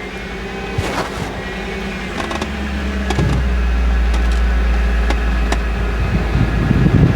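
2005 Mercedes G-Wagon engine idling after a jump start, with a few sharp clicks. About three seconds in, a deeper steady hum joins as the AC is switched on.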